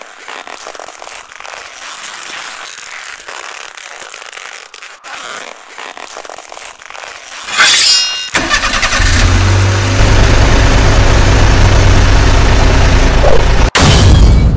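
A steady hiss, a short metallic ring a little past the middle, then a heavy truck engine starts up and runs loudly, low and steady, with sharp cracks near the end.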